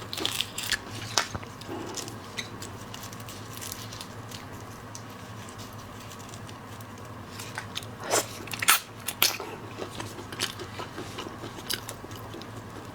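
Close-miked eating of seafood: biting, crunching and chewing with sharp crackles. A few crunches come near the start, then quieter chewing, then a cluster of sharp cracks about eight seconds in.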